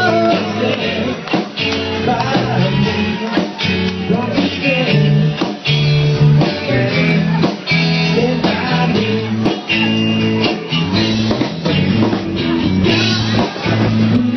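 Live rock band playing: guitar and a singing voice over a steady beat.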